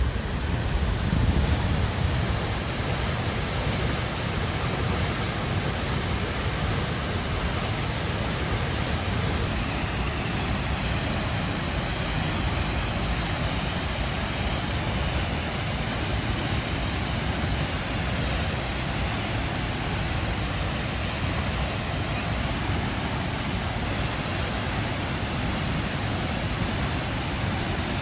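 Waterfall almost 30 metres high pouring steadily: an even, unbroken rush of falling water.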